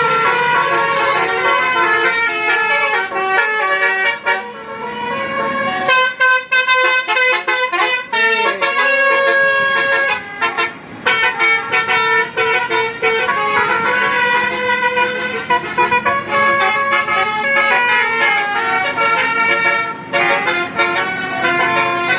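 Bus basuri (telolet) multi-tone horn playing a fast melody, its notes stepping quickly up and down, with a few short breaks between phrases.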